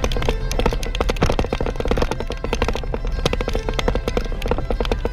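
Background music with a quick, busy percussion beat.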